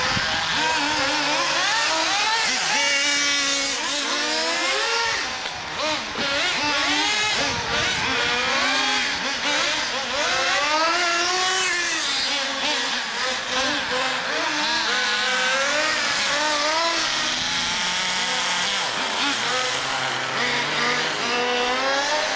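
Small nitro engines of several HPI MT2 radio-controlled monster trucks revving up and down, their high whines overlapping and rising and falling in pitch without a break.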